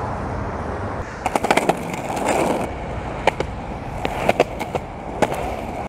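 Small plastic cruiser skateboard rolling on a concrete sidewalk, its wheels rumbling steadily. A quick run of sharp clacks comes about a second in, and a few single clacks follow later.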